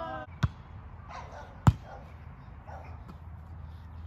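Two sharp slaps of hands striking a volleyball, about a second and a quarter apart, after a drawn-out call that fades out at the start.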